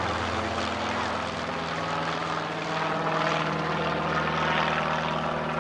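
Small propeller-driven aircraft flying close by, its engine a steady drone.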